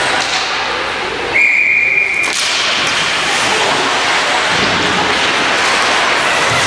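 Ice hockey referee's whistle blown once, a steady high note lasting about a second, over a steady background of rink noise.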